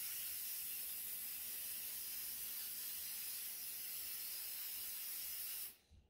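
Aerosol can of Rust-Oleum white appliance epoxy paint spraying onto a refrigerator with a steady hiss that cuts off just before the end.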